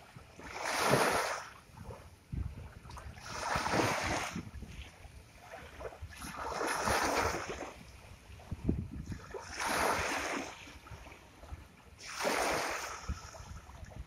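Sea waves breaking and washing up a shore in a slow rhythm: five rushing surges, one every two to three seconds.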